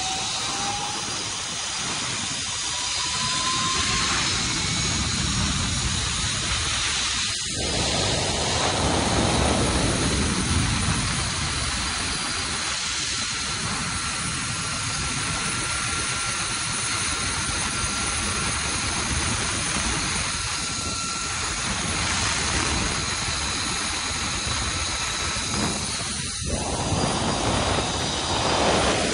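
Steady rushing of wind over the microphone on a high-speed zip line ride at around 60 mph, with the faint steady whine of the trolley running along the steel cable.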